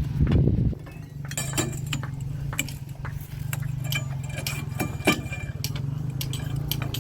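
Scattered sharp metallic clinks and taps of steel reinforcing bars and hand tools being handled during steel fixing, over a steady low hum. A muffled low thump comes in the first second.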